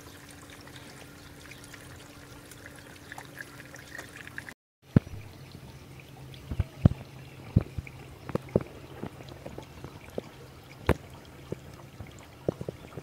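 Water trickling and pouring as an aquaponic grow bed drains through its bell siphon during the flood-and-drain cycle. After a brief cut about halfway through, a run of irregular drips and splashes.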